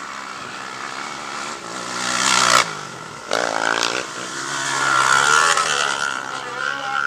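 Racing quad (ATV) engines revving hard as the quads pass on a dirt track, the pitch climbing with each throttle run. The sound cuts off abruptly about two and a half seconds in, then another engine revs up and swells loud again.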